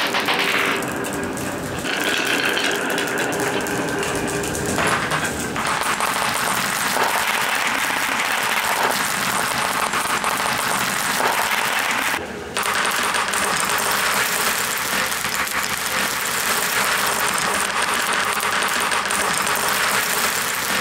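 Many glass marbles rolling and clacking against each other and the beech-wood channels of a HABA wooden marble run, fed through foam pool-noodle tunnels: a dense, continuous clatter of small clicks. It dips briefly about twelve seconds in.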